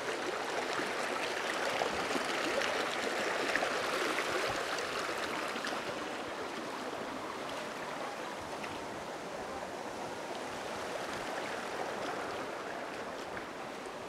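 Shallow forest creek running over stones: a steady rushing and trickling of water, with a few faint light clicks.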